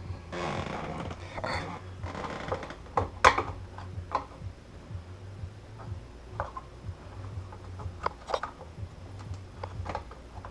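Handling noises: a brief rustle near the start, then scattered clicks and taps, the loudest a little over three seconds in, over a faint steady low hum.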